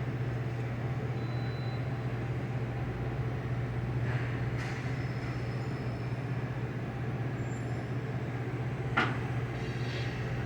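Steady low hum of an Okuma CNC lathe running, with a softer click about four and a half seconds in and a sharper click about nine seconds in.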